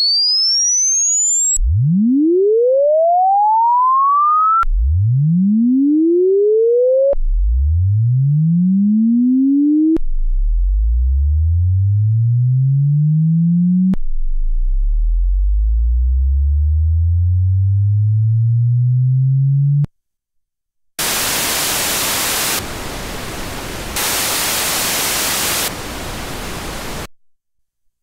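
Sine sweep output from a Teensy 3.1 test signal generator: a pure tone rising from a low hum to a high whistle, cut off and restarted five times, each sweep slower than the last. After about a second of silence comes steady hiss, switching four times between brighter white noise and duller pink noise before it stops.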